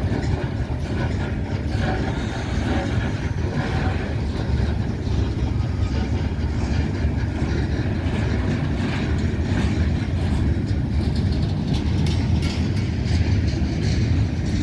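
Freight cars rolling past, among them boxcars, a covered hopper and bulkhead flatcars loaded with rail. Their steel wheels make a steady heavy rumble on the track, with clicks as they cross the rail joints.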